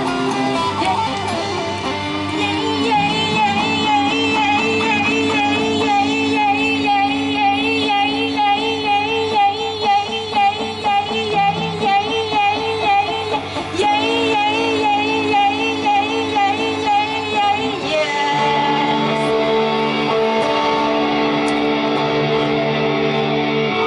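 Live female singing with electric guitar accompaniment in a Thai pop song, the voice holding long notes with a wide, even vibrato. Near the end the wavering notes give way to steadier guitar chords.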